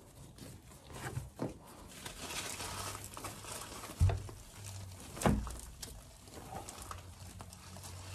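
Exhaust heat wrap being wound by hand around a motorcycle exhaust header pipe: the woven wrap rustles and scrapes against the pipe. Two loud thumps come about four and five seconds in.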